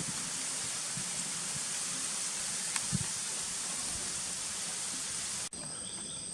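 A steady outdoor hiss with a few soft low thumps. About five and a half seconds in it cuts off abruptly to insects chirping in steady high tones.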